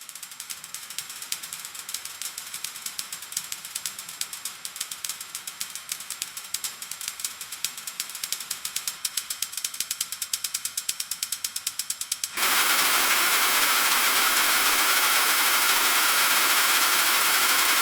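Freezing rain striking a metal roof: a dense patter of rapid, sharp ticks over a faint hiss. About twelve seconds in it switches abruptly to a louder, steady hiss of heavy sleet.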